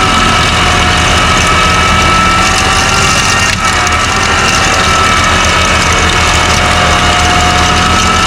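A large engine running steadily, with a low rumble and a steady high whine above it; the sound dips briefly about three and a half seconds in.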